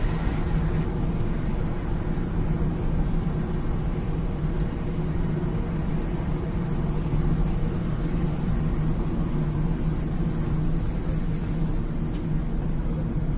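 Steady engine and tyre road noise heard inside a moving car's cabin, a constant low hum and rumble at cruising speed.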